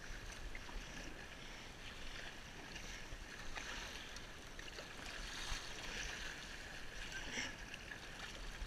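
Choppy sea water washing and splashing against a kayak's hull, a steady rushing hiss that swells and eases, with a low rumble underneath.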